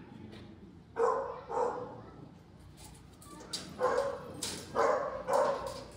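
A dog barking in quick pairs, about three pairs of short barks.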